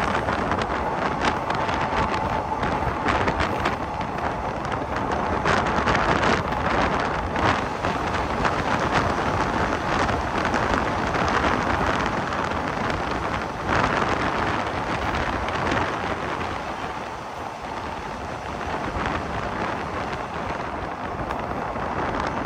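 Wind buffeting a microphone held out of a moving passenger train's window, over the train's running noise on the rails; a faint steady whine in the first few seconds.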